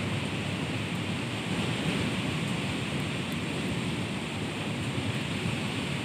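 Strong wind blowing through trees and bushes: a steady rushing with a rumbling low end.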